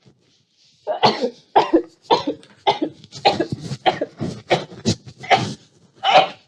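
A person's rapid sneezing fit: about ten short, explosive sneezes, one every half second or so, set off by garlic pushed up the nose.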